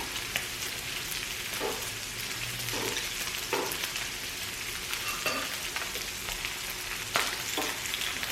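Samgyeopsal (pork belly) sizzling on a grill, a steady crackling hiss, with scattered short clicks and knocks over it.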